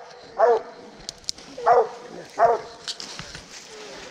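Coonhound barking treed at a possum up a tree: three short, pitched barks within about two seconds, the tree bark of a dog holding game up.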